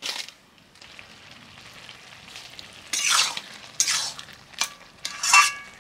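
A spatula scraping and stirring through a thick curry of greens, potatoes and lentils in a large metal kadai over a faint sizzle. Several strokes come about half a second to a second apart in the second half, and the last one rings briefly off the pan.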